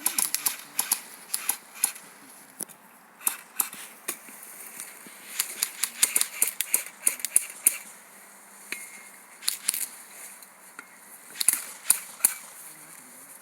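Airsoft guns firing: scattered sharp snaps, some single and some in quick runs of several shots, at varying loudness.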